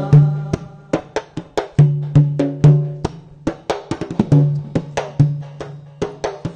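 Instrumental break between verses of a Malayalam devotional song: a busy rhythm of sharp percussion strikes over a repeating low bass note, with a few short melodic notes and no singing.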